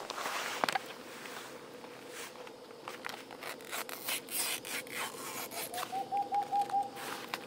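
Rustling and rubbing of nylon tent fabric and camping gear being handled while a tent is pitched, with scattered sharp clicks. About six seconds in, a brief run of about six quick notes sounds.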